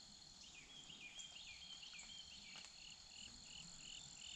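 Faint chorus of crickets and other insects: a steady high-pitched drone, with a chirp repeating about three times a second from about half a second in.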